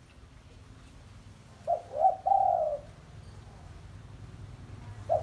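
Spotted dove cooing one phrase about two seconds in: two short notes followed by a longer held note.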